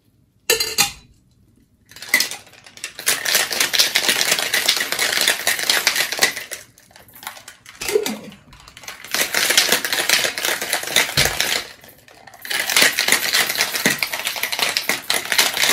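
Ice rattling hard inside a Boston shaker as a cocktail is shaken, in three bouts of a few seconds each with short pauses between, after a brief clatter near the start.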